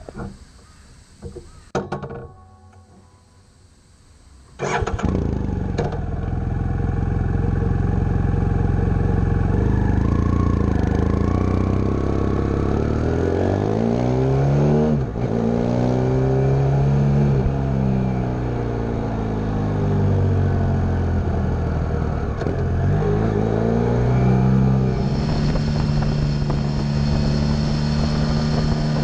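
BMW F800 GS parallel-twin motorcycle engine, on a stock or Barrett slip-on exhaust. After a few quieter seconds with a couple of clicks, it comes in loud at about four and a half seconds and runs. Midway its pitch rises and falls repeatedly as it is revved and shifted through the gears, then it holds a steady note near the end, with some wind noise.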